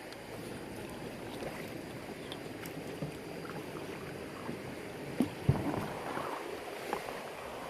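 River water rushing and splashing around an inflatable kayak being paddled, with small scattered splashes and two sharp knocks a third of a second apart about five seconds in.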